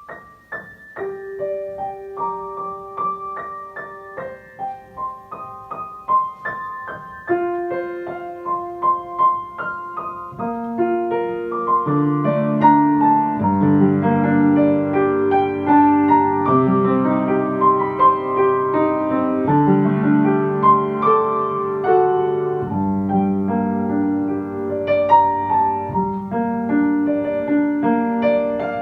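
Slow, mellow piano music: sparse single high notes at first, joined about eleven seconds in by low bass notes and fuller chords, growing louder.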